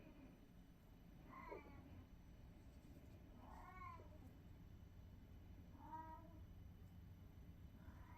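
Faint animal calls, four short cries each rising and falling in pitch, about two seconds apart, over a low steady hum.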